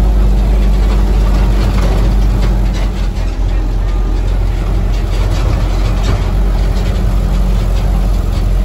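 An engine running steadily, a loud continuous low drone with a rough rushing noise over it.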